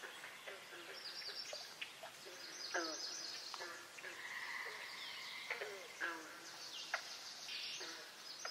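Small birds singing and calling: repeated high chirps and trills, short falling calls, and one held note just past the middle.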